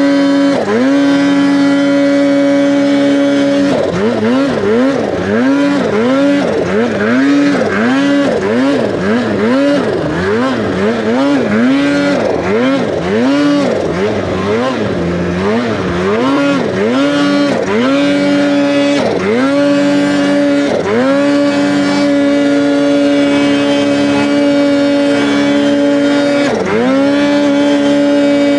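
Polaris Khaos Boost turbocharged two-stroke snowmobile engine at high revs, climbing in deep snow. The throttle is worked on and off more than once a second through the middle, so the pitch keeps dipping and climbing again; near the end it is held steady at high revs, with one brief dip.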